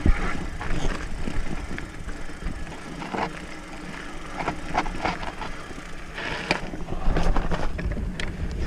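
Mountain bike rolling down a stony dirt singletrack: tyres crunching over loose stones and rocks, with scattered sharp clicks and rattles from the bike. A low rumble grows louder about seven seconds in.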